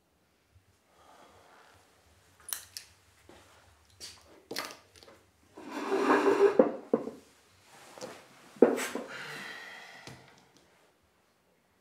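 A few footsteps and light knocks, then a chair dragged out over a tiled floor, scraping with a squeal about six seconds in. A sharp knock follows as he sits, and the chair scrapes again as it is shifted in at the table.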